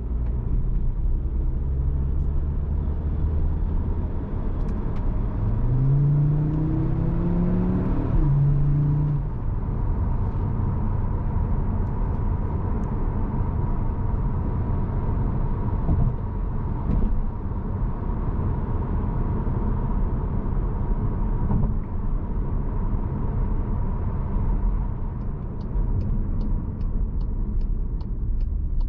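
Cupra Formentor VZ5's 2.5-litre turbocharged five-cylinder engine pulling under acceleration, its pitch rising for a couple of seconds and then dropping at a gear change, then settling to a steady low cruise over road rumble. A run of even ticks near the end.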